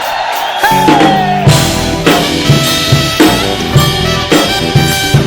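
Acoustic drum kit playing a steady beat in a live worship band's instrumental passage, with bass drum and snare hits about twice a second. The low end drops out briefly at the start, and the full band comes back in about a second in.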